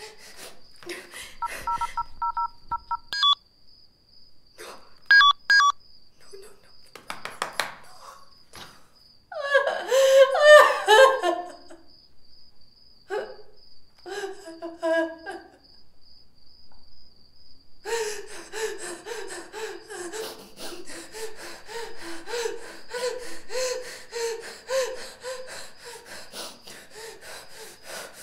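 A few short two-tone phone keypad beeps early on. Then a woman cries out loudly around ten seconds in, and from about eighteen seconds she sobs steadily in quick, gasping pulses.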